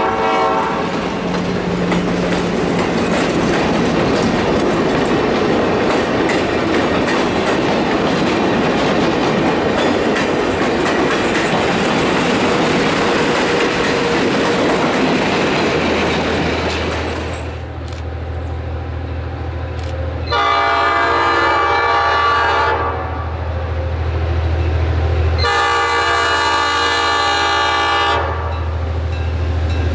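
EMD E8 diesel passenger locomotives and their train: rolling wheel-and-rail noise for about the first half. Then a steady low engine drone sets in, and the air horn sounds two long blasts, with a third starting near the end.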